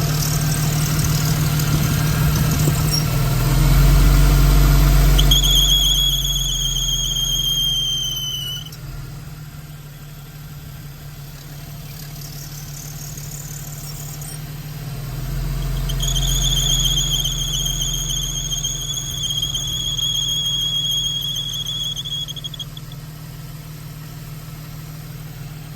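Idling car engine with its serpentine belt drive wetted with water, letting out a high-pitched squeal twice: a short one about five seconds in and a longer one from about sixteen seconds. The owner suspects the belt tensioner, since the belt is jumping.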